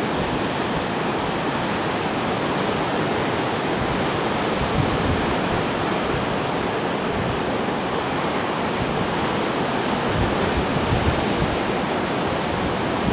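Steady wash of sea surf, with wind on the microphone.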